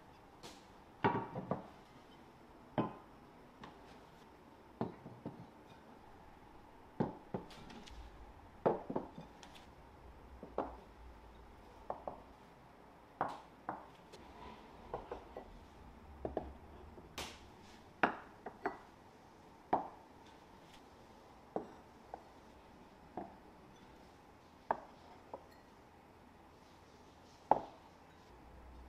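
Ceramic plates and bowls set down one at a time on a wooden table and wooden trays: a scattered run of light knocks and clinks, roughly one every second or so.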